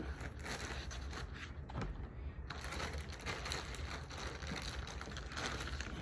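Irregular rustling and crinkling of packaging being handled while an amplifier is unboxed, with small scrapes and clicks throughout.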